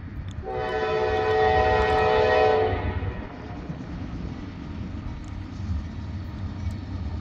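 Norfolk Southern diesel locomotive's air horn sounding one long blast for a grade crossing, starting about half a second in and lasting over two seconds, over the low, steady rumble of the approaching locomotives.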